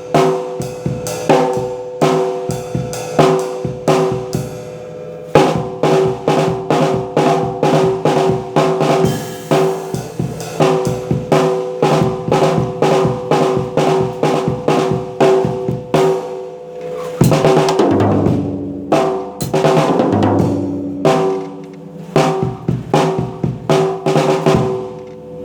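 Drum kit played in a steady beat of snare and bass drum, with the snare's ringing tone heard under every stroke. Around 17 seconds in, a fill moves across the toms, stepping down in pitch, before the beat picks up again.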